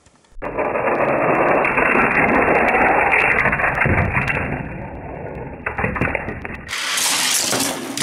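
Die-cast toy cars rolling fast down an orange plastic Hot Wheels track in a race replay. For about six seconds the rolling is heard slowed down as a dull, muffled rumble with scattered clicks. Near the end it plays at full speed as a brighter rattling rush as the cars reach the finish.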